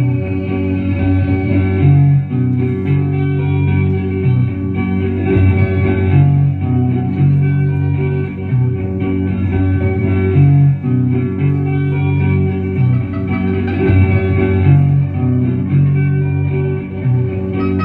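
Live guitar-led indie music: guitar playing a repeating, cyclical melody over a moving bass line, with no singing.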